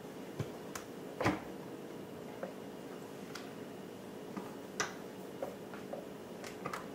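A Vitamix blender's plastic container and lid being handled on the counter: scattered light clicks and taps, the loudest about a second in, over a faint steady hum. The blender motor is not running.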